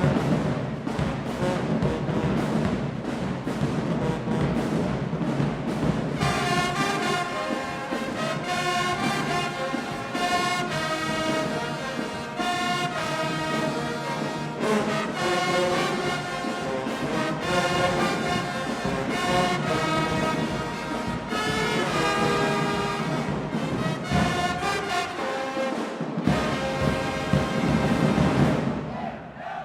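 Marching band playing: heavy drumming, then the brass section comes in with a melody about six seconds in and plays over the drums.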